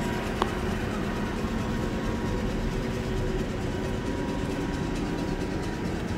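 Steady machinery hum with a constant whine over a low rumble, and one sharp click about half a second in.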